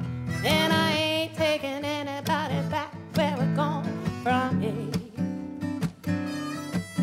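Background music: a song with a singing voice, held notes wavering with vibrato, over plucked acoustic guitar.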